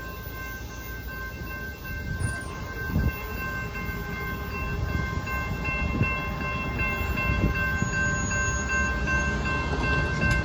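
Amtrak passenger train passing, its rumble growing louder, with a few sharp wheel clacks over the rail joints. A multi-chime train horn holds a long, steady chord over the top.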